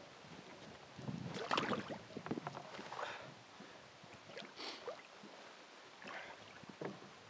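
Handling noises in a small fishing boat: irregular knocks and scrapes against the hull and gear, with rustling, as the angler picks up a landing net by its long handle. The loudest, busiest cluster comes between one and two seconds in, with smaller ones later.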